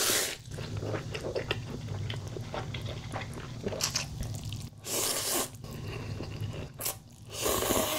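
Close-miked eating: cold buckwheat noodles slurped in three long slurps, at the start, about five seconds in and near the end, with wet chewing clicks between.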